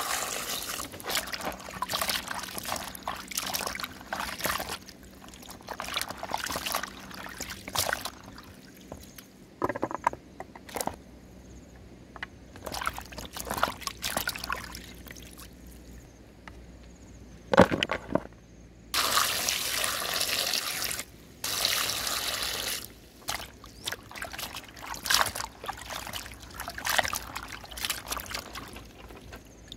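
Water pouring into a plastic basin of raw chicken feet, then hands sloshing and rubbing the feet in the water in irregular bursts of splashing.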